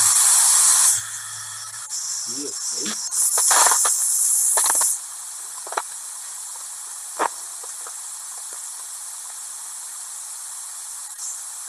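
Loud hissing static for about the first second and again from about three to five seconds in, settling into a steady tape hiss with a few faint short clicks: the noise of degraded VHS footage.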